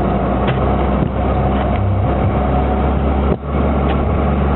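Military vehicle's engine and driving noise heard from inside the cab on the move, loud and steady, with a brief dip about three and a half seconds in.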